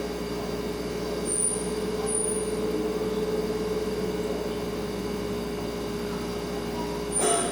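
Refrigerator humming steadily on one fixed tone. Two brief high squeaks come a couple of seconds in, and a short click comes near the end.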